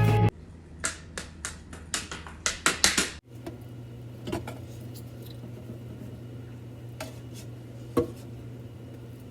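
A rapid series of light, sharp clicks for about three seconds, then a low steady hum with a few isolated clinks.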